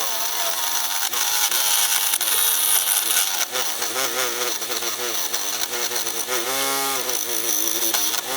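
Chainsaw cutting maple, its engine pitch rising and falling as it works through the wood.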